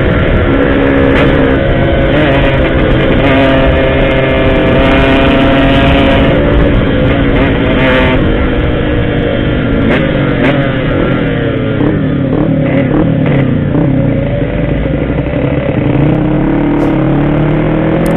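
Yamaha RX-King's two-stroke single-cylinder engine running loud under way, its revs falling and climbing again several times as the bike is ridden.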